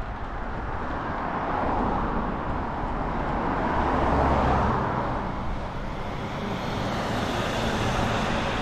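Oncoming cars passing a moving bicycle, heard as a continuous road and tyre rush over a low rumble. It is loudest as one car goes by about four seconds in, and swells again as another passes near the end.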